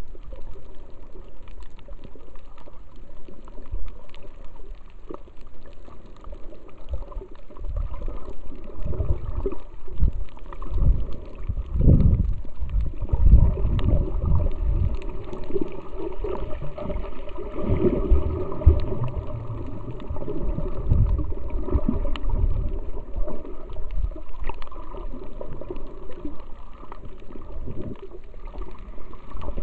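Water sloshing and gurgling against a camera held underwater, a continuous wash with stronger irregular low surges through the middle.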